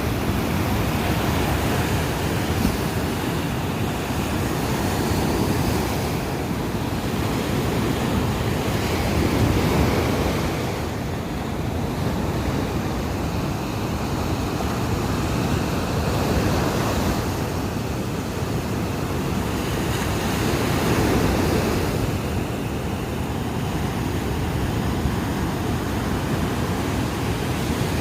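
Sea waves breaking on a beach: a continuous rushing wash of surf that swells and eases every several seconds as each wave comes in.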